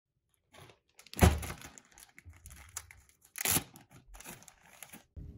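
Plastic zip-top bag crinkling as hands open it and reach inside, with two louder rustles, about a second in and about three and a half seconds in.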